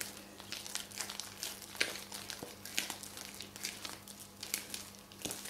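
A spatula stirring and scraping cold-porcelain paste of glue and cornstarch in a glass bowl, with irregular short scrapes and clicks against the glass over a faint steady hum. The paste has been microwaved three times and is starting to harden.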